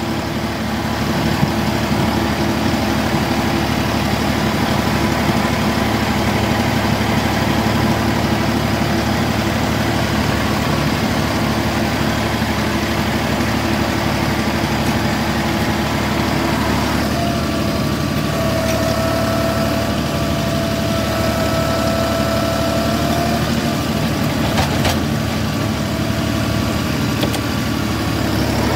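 Compact tractor's engine running steadily. From a little past halfway a steady higher whine joins it for several seconds, from the front-end loader's hydraulics working, and there is a single knock near the end.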